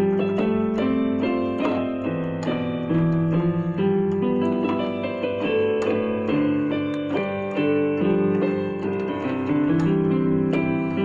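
Musical keyboard played with a piano sound: a melody over held chords, the notes changing about every half second.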